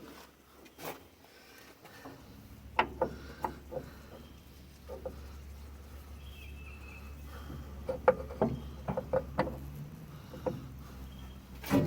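Scattered knocks and clinks of hand tools and metal parts being worked on a skid steer's engine and drive coupling, thickest about eight to nine and a half seconds in, over a low steady hum.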